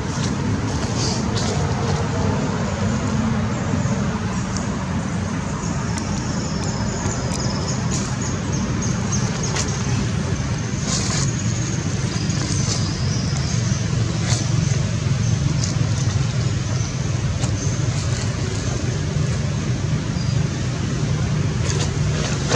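Steady low background rumble, with scattered faint clicks and rustles of dry leaves.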